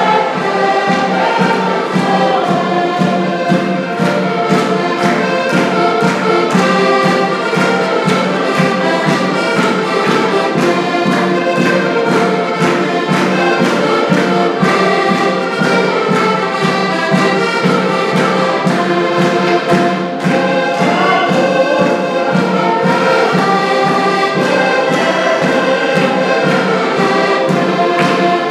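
Live Portuguese folk music: several diatonic button accordions (concertinas) playing a lively tune over a steady beat struck on a rope-tensioned bombo bass drum, with voices singing along.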